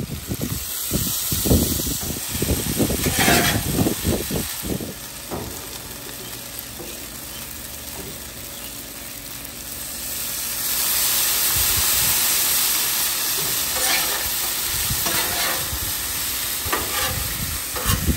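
Diced potatoes sizzling as they fry on a Blackstone flat-top griddle, with scraping and knocking as they are stirred in the first few seconds. The sizzle grows louder and brighter about ten seconds in, and there are a few more scrapes near the end.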